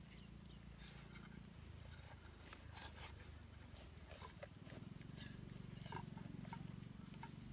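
Faint scattered clicks and handling noises as a plucked raw duck is turned and worked onto a wooden stick skewer in a steel bowl, over a low steady rumble.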